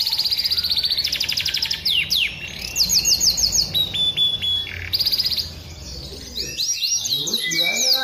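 Canary singing: fast trills of rapidly repeated high notes and quick falling slurs, with a short break about five and a half seconds in.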